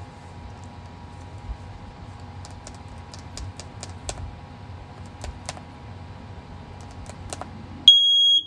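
Small clicks and taps of the alarm being handled, then about eight seconds in a hardwired First Alert OneLink smoke alarm's horn starts sounding on test: a loud, high-pitched beep.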